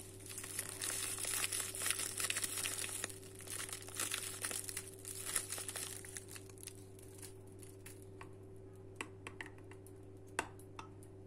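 A spice packet crinkling as dried oregano is shaken out of it over a bowl, dense for the first six seconds or so, then thinning to a few scattered light clicks near the end.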